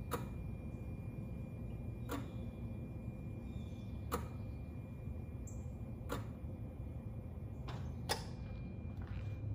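Nissan Titan's V8 idling with the hood open: a steady low rumble, with a sharp click about every two seconds.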